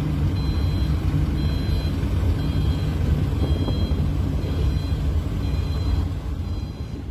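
Low, steady drone of a large ro-ro passenger ferry's diesel engines as it manoeuvres toward the berth, with faint high beeps recurring about once a second.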